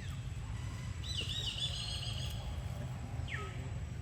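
Baby monkey giving high-pitched calls: a warbling call about a second in, then two short squeaks that fall in pitch near the end, over a steady low hum.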